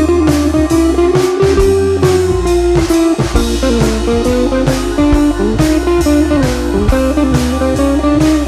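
Background music: a guitar-led blues track with a steady drum beat and bass.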